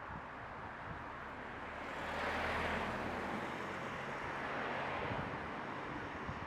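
A motor vehicle passing by: its engine and tyre noise swells to a peak about two and a half seconds in, then fades, with a low steady hum underneath.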